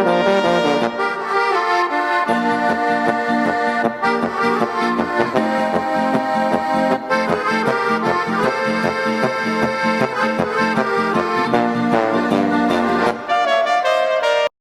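Background music with a steady beat, led by accordion-like and brass tones; it cuts off suddenly near the end.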